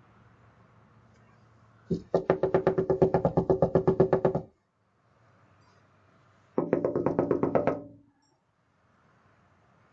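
Two bursts of fast, rapid knocking, about nine strokes a second with a ringing pitch: the first lasts about two and a half seconds, the second, about two seconds in after a pause, lasts about a second and a half.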